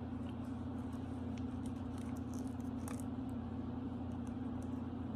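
A steady low electrical or fan-like hum, with faint scattered ticks and rustles of small objects being handled, one slightly sharper about three seconds in.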